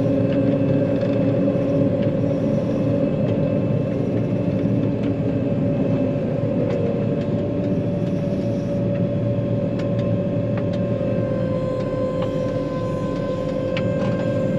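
John Deere 9500 combine's diesel engine running steadily while driving on the road, heard from inside the cab, with a steady whine over the drone. A lower tone in the drone fades about six seconds in, and a few faint clicks and rattles come through.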